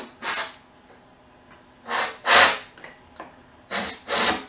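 Short blasts of compressed air hissing as the fuel injector ports of the intake manifold are blown clean. There are five blasts, mostly in close pairs about every two seconds.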